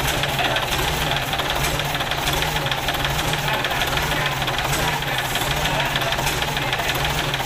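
Rebuilt Mitsubishi Fuso 6D22 inline-six diesel engine running steadily on a test stand, its test run after repair.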